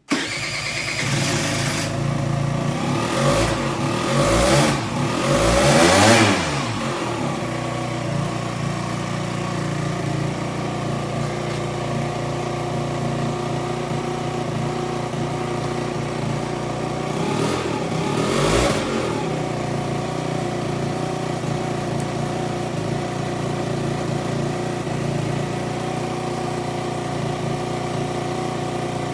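Aprilia SR50 Purejet scooter's 50 cc two-stroke direct-injection Piaggio engine starting up and idling, revved up and back down a few times in the first several seconds and once more about 18 seconds in, otherwise idling steadily.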